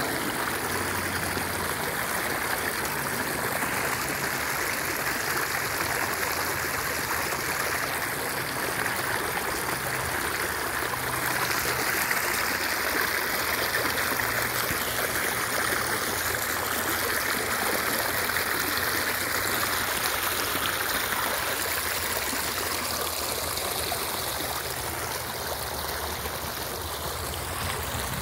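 Shallow creek water splashing and trickling over rocks in a small cascade, a steady rushing that grows a little louder through the middle and eases off near the end.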